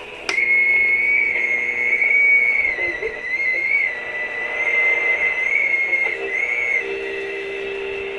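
High, slightly wavering whistle tone from the speaker of an Aistar mini portable black-and-white TV. It cuts in suddenly with a click and runs with lower steady hum tones beneath, breaking briefly twice near the end.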